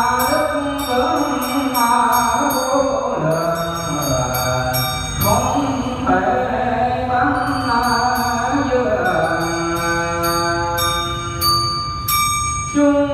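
Buddhist devotional chant sung on held, flowing notes, with a steady rhythm of light, high-pitched strikes keeping time.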